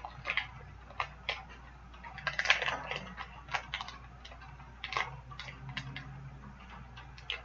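Scattered light clicks and brief rustles of a small cardboard toy box being handled, with a busier stretch of rustling a little over two seconds in.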